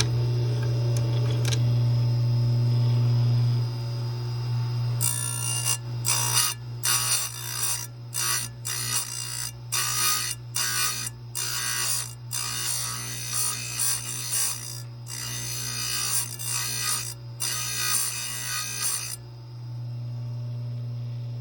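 Square-grind chainsaw chain grinder: the motor hums steadily, and from about five seconds in the wheel grinds the cutters of a Husqvarna C83 chain in short passes, one after another with brief gaps, converting them to square ground. About nineteen seconds in the grinding stops and only the hum remains.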